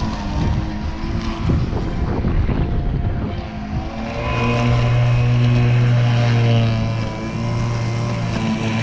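Powerbase battery lawn mower running and cutting long grass. The motor's hum is joined by rough blade-and-grass noise for the first few seconds, and the hum steadies and shifts pitch about four seconds in.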